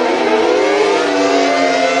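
Synthesized Cold War air raid sirens of the Federal 9/12-port-rotor type (500T, Model 5/7T, SD-10), several sounding together. Their wails overlap, with some tones falling in pitch while others rise and cross them about half a second in.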